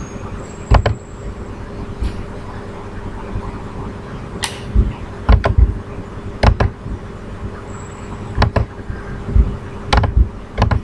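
Scattered sharp clicks of a computer mouse and keyboard, several in quick pairs, over a steady low hum.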